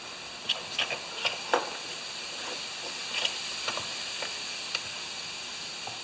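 A metal tool levering a rubber tire bead over a lawnmower wheel rim: irregular clicks, knocks and scrapes of tool on rim and rubber, the strongest in the first second and a half.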